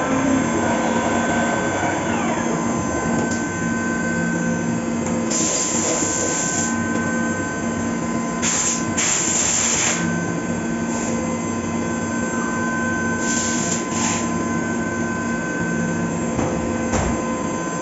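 Fagima Jazz M 5-axis CNC milling machine running through a cut, a steady machine sound with several held tones, broken three times by a few seconds of hiss.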